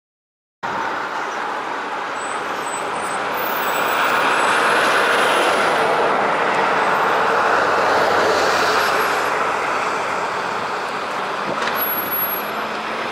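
City street traffic: buses and cars driving past, a steady rush of engine and tyre noise that cuts in abruptly about half a second in and swells louder in the middle.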